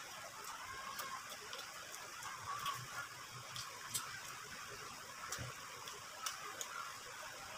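Close-miked eating sounds: a person chewing grilled barbecue, with scattered irregular lip smacks and wet mouth clicks, a few soft low knocks, and fingers being licked near the end, over a faint steady hiss.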